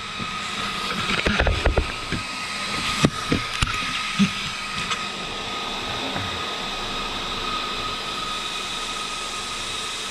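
Small electric cooling fans on an RC monster truck whirring steadily with a thin high whine. Clicks and knocks of handling and connecting the fan wiring come in the first few seconds as another fan is brought up to speed.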